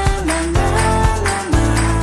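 Background music with a steady beat, about two beats a second, under a held, slowly moving melody.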